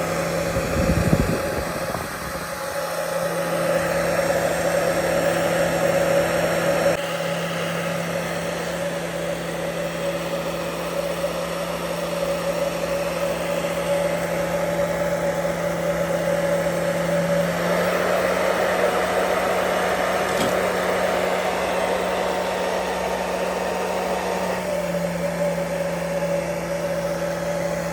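Hair dryer running steadily, a rush of air over a constant motor hum, blowing heat onto a screen to soften its glue. A brief low rumble of air about a second in.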